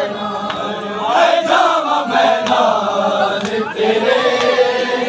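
A crowd of men chanting a noha (mourning lament) together, loud, swelling about a second in, with one voice sliding down in pitch midway.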